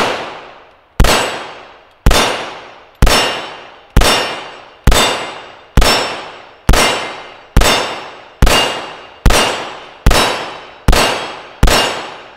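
A string of about fourteen 9mm pistol shots from a stainless CZ-75B, fired steadily at roughly one a second. Each shot is followed by a long metallic ring from a steel target plate being hit.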